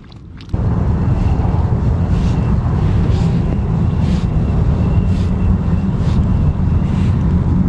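Wind buffeting the microphone of a chest-mounted GoPro, a loud steady low rumble that sets in about half a second in.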